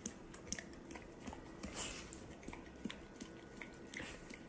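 Golden retriever licking and smacking its lips: faint, irregular small wet clicks.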